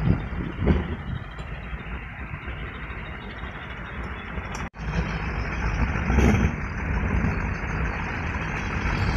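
Kolecer, wooden wind-driven propellers on tall bamboo poles, whirring in the wind with a dense droning sound that swells and fades with the gusts. The sound cuts out for a moment about halfway through.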